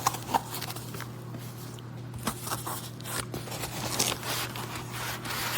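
A box of sound deadening mat sheets being handled: scattered rustles, scrapes and short clicks over a steady low hum.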